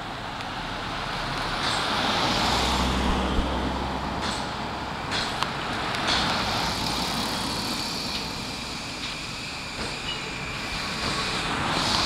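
Road traffic running past, with an E235 series electric commuter train moving slowly along the tracks behind. There is a low steady hum for a few seconds about a quarter of the way in, and a vehicle passes close by near the end.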